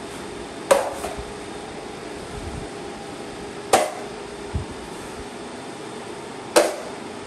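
Steel drywall knife clacking against the edge of a metal mud pan three times, about three seconds apart, each with a short metallic ring. A fan hums steadily underneath.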